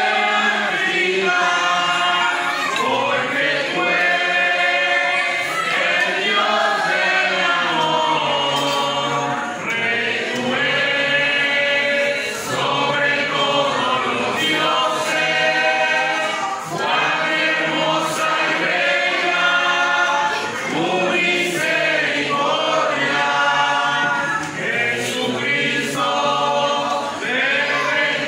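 A large group of voices, mostly women, singing a church hymn together as a choir, continuous and loud throughout.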